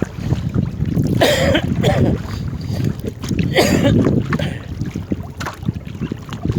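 Wind buffeting the microphone in a steady low rumble, with two louder rushing gusts about a second in and again around three and a half seconds in.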